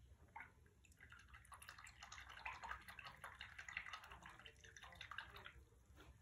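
Faint swishing and dabbing of a wet watercolour brush in water: a run of small clicks and splashes from about a second in, stopping near the end.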